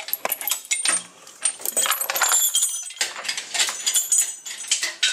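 Steel engine-hoist lifting chain and hook jangling as they are handled, a rapid run of metallic clinks with brief ringing.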